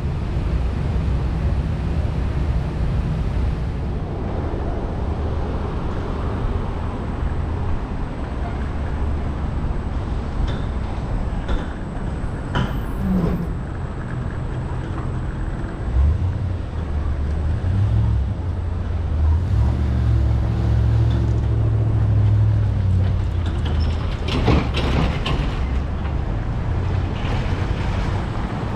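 City street traffic heard from a moving scooter: a steady low rumble of wind and road noise. A heavier vehicle passes in the middle, and a few sharp knocks come midway and near the end.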